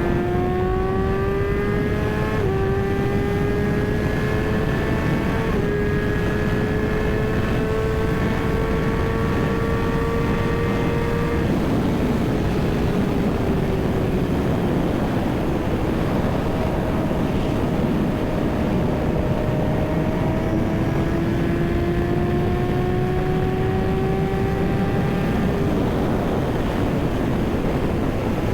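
Kawasaki ZX-6R inline-four engine under way, its pitch climbing slowly under throttle with two short dips like quick upshifts in the first six seconds. About halfway through the pitch falls off as the bike slows, then it climbs again and drops near the end. Steady wind rush sits underneath.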